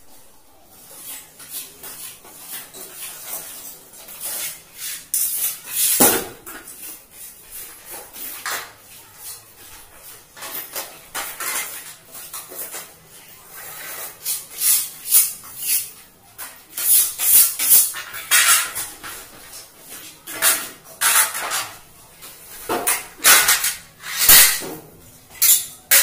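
Metal tools and hardware clattering and clinking as someone rummages through a toolbox, in irregular bursts that come thicker in the second half.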